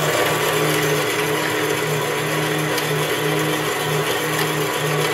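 Jet 7" x 12" horizontal band saw running at full speed, its 3/4 hp motor and belt drive turning the blade. A steady hum with a lower tone that pulses just under twice a second.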